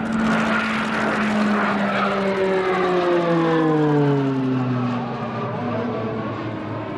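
Pilatus PC-9's PT6A turboprop engine and propeller flying past: a steady propeller drone whose pitch slides down over a few seconds as the aircraft goes by, loudest about four seconds in and fading a little near the end.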